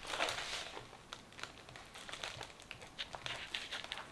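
Faint handling noises of an eyeshadow palette and its packaging: a soft rustle at the start, then scattered small clicks and light crinkling.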